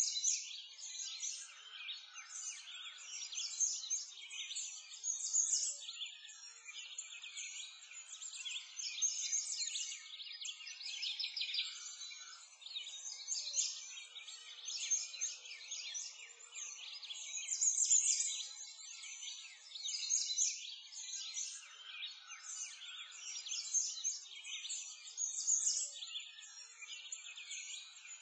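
A dense chorus of many small birds chirping and twittering without pause, all high-pitched, with nothing low underneath.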